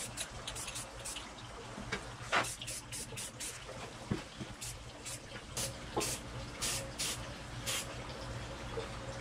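Aerosol spray paint can sprayed in many short hissing bursts, a few of them held a little longer past the middle, painting stripes onto a wooden carving.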